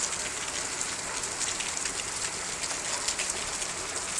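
Heavy, torrential rain pouring down steadily: a dense hiss of rainfall dotted with many small drop hits.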